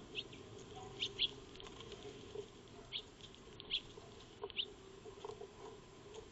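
Eurasian tree sparrows giving short, sharp chirps, about six scattered through a few seconds, each falling slightly in pitch.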